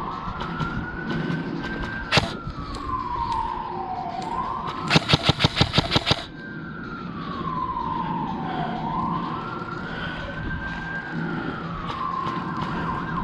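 A wailing siren rising and falling slowly, about one full sweep every four to five seconds. About two seconds in there is a single sharp shot, and about five seconds in an airsoft gun fires a rapid burst of about ten shots in just over a second.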